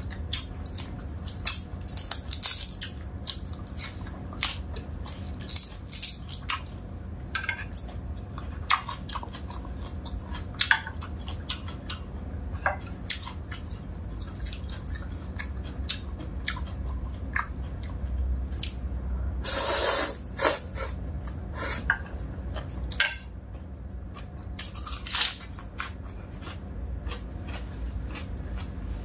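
Close-up eating sounds: chewing and crunching fresh lettuce leaves and dry instant noodles, with many short sharp crunches and smacks and one longer, louder burst about two-thirds of the way through.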